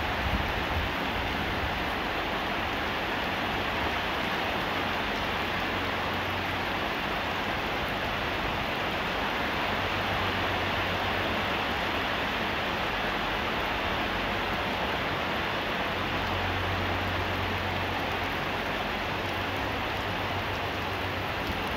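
Heavy rain falling steadily on a shed roof, a continuous even hiss, mixed with the rush of a large electric fan's wind; a low hum swells and fades a few times.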